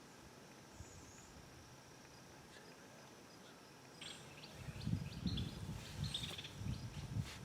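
Quiet woodland ambience with a faint steady hiss. From about four seconds in, irregular low rumbling noise on the microphone comes in, with scattered short bird chirps and clicks over it.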